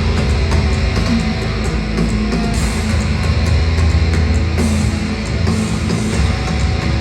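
Live heavy metal band playing: loud distorted electric guitars, bass and pounding drums.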